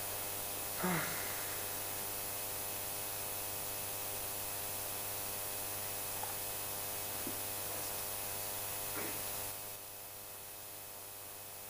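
Steady electrical mains hum with a constant hiss. A short falling voice sound comes about a second in, and there are a few faint small noises later.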